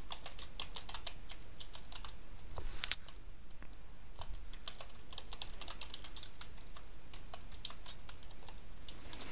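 Computer keyboard keys clicking in irregular quick runs as a command is typed.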